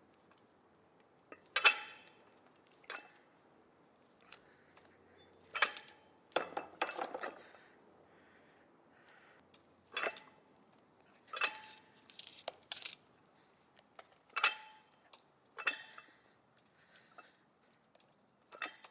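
Gym weights and equipment clanking: scattered metal knocks and clinks, a dozen or so at irregular gaps, some with a brief ring.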